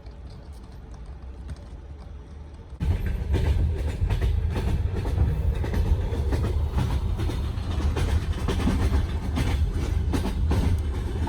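A passenger train running on the rails: a low rumble with irregular knocks of the wheels over the track. It is soft at first and jumps abruptly to loud about three seconds in.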